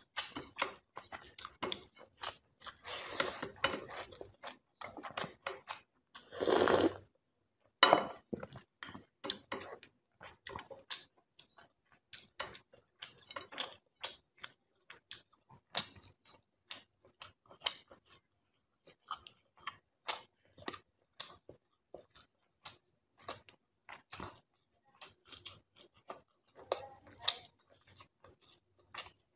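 Close-miked eating sounds: wet chewing and lip smacks as rice and fish curry are eaten by hand, in quick irregular clicks, with two longer wet noisy stretches, the louder one about seven seconds in.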